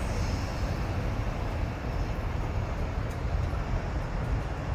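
Hello Kitty Shinkansen, a 500-series bullet train, running away down the line, its noise slowly fading to a low rumble.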